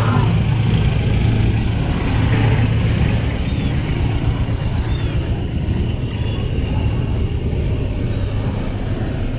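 Steady rumbling ride noise from a bicycle moving through slow traffic, with car engines running close by.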